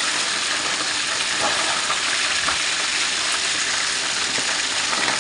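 Hot oil sizzling steadily as a whole red tilapia deep-fries in a pot.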